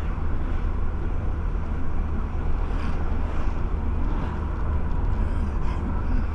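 Steady low rumble of engine and tyre noise inside a moving car's cabin, picked up by a dashcam, with a few faint hissing swells.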